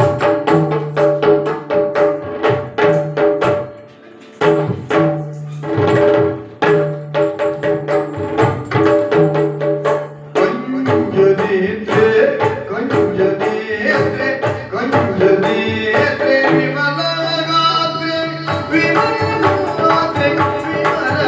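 Yakshagana instrumental accompaniment: rapid, regular drum strokes over a steady held drone. The drumming breaks off briefly about four seconds in and changes to a freer pattern about halfway through.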